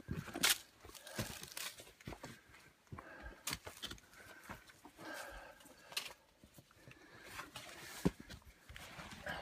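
Irregular crunching and scraping of footsteps and hands on dirt, dry leaves and rock during a scramble down a steep trail.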